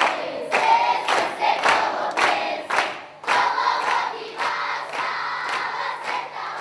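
A group of voices singing together, with hand-claps keeping an even beat of about two a second.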